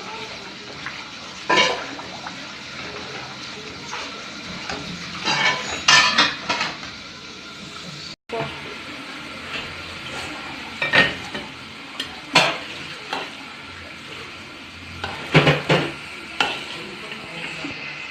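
Spoon knocking and scraping against a cooking pot as vermicelli is stirred, in irregular clinks and clusters, over a steady frying hiss.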